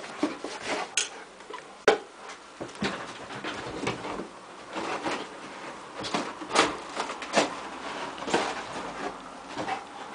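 A Rottweiler scrambling about on a bed: irregular thumps, scrapes and rustling of the bedding and cushions. There is a sharp knock about two seconds in.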